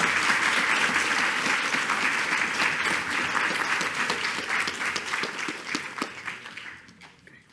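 Audience applauding: a dense, steady spell of many people clapping that thins and dies away near the end.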